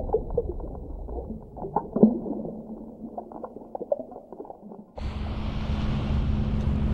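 Muffled underwater bubbling and gurgling of scuba exhaust bubbles, with irregular pops, fading over about five seconds. Then a steady outdoor rush of noise with a low hum cuts in abruptly.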